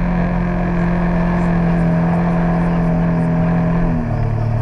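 Jet ski engine running at a steady speed, its note dropping to a lower pitch about four seconds in as the throttle eases off.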